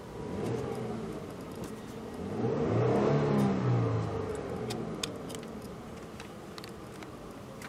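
2014 Hyundai Genesis V6 engine revved: a short blip just after the start, then a longer rev that climbs to a peak about three seconds in and falls back to a steady idle. It revs freely.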